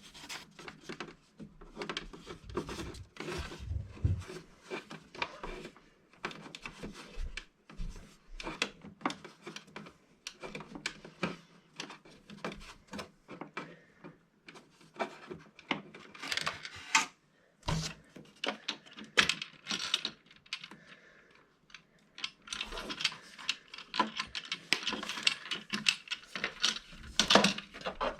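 Irregular small clicks, taps and scraping of a hand tool and fingers working a transit screw loose inside a 3D printer, busier in the second half.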